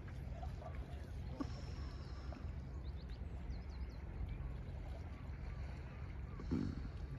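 Open-shore ambience: a steady low wind rumble on the microphone with gentle water lapping among the rocks. There are a few faint high chirps about three seconds in and a brief louder bump near the end.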